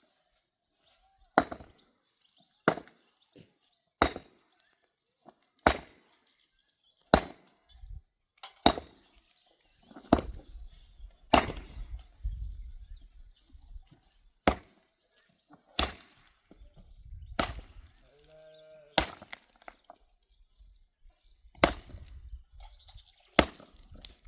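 Wood being chopped: a steady series of sharp chopping strokes, roughly one every second and a half.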